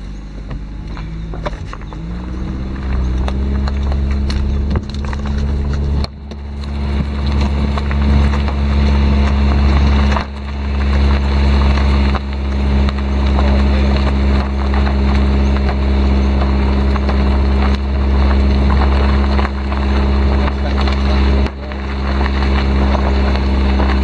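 Hyundai car engine pulling the car along at low speed, its note rising over the first couple of seconds and then holding steady. A heavy low rumble of wind on the microphone, held out the open window, runs under it and dips briefly a few times.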